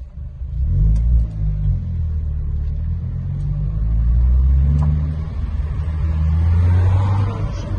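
Car engine and road rumble heard from inside the cabin as the car drives along, getting louder about a second in as it picks up speed.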